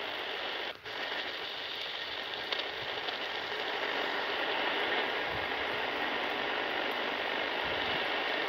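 Shortwave hiss and static from a Degen CY-1 pocket radio's speaker as it is tuned between stations around 5.8–5.9 MHz. The hiss cuts out briefly about a second in.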